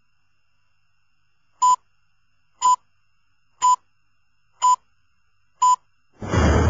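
Film-leader countdown: five short, high beeps one second apart. Near the end a loud low rumble starts suddenly.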